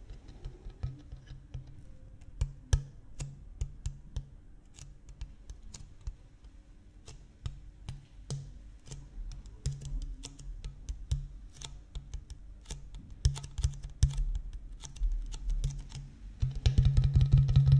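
Fingertips tapping on an empty clear plastic water bottle: irregular, light clicking taps that quicken and grow louder near the end.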